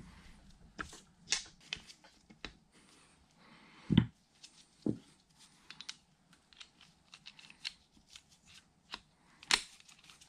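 Small metal parts being handled and fitted into a Bridgeport milling machine's quill housing: scattered light clicks and knocks of metal on metal, a duller thump about four seconds in, and a sharp click near the end.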